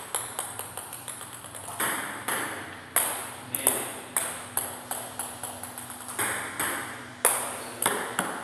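Table tennis balls being played back and forth: sharp clicks of ball on racket and on the table in quick succession, several a second, with a few hits louder than the rest.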